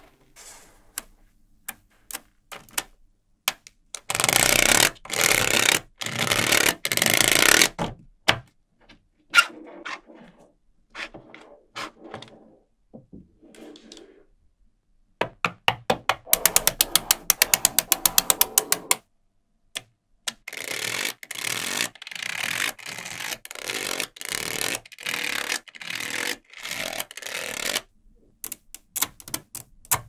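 Small magnetic balls clicking and clattering as they are snapped together and handled by hand, in dense clusters of sharp clicks. A little past halfway comes a fast, evenly spaced run of clicks, balls snapping together one after another.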